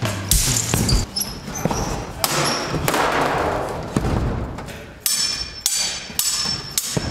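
Swords clashing in a staged fight: a string of sharp metallic clangs, several of them ringing with a high tone. The clangs come in quick runs, one about a second in and a denser one in the last two seconds.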